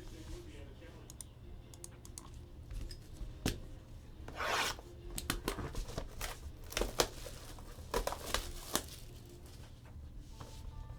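Sealed trading-card box being opened by hand: its plastic wrap is torn and crinkled, with scattered taps and rubs of cardboard, and one longer tear about four and a half seconds in.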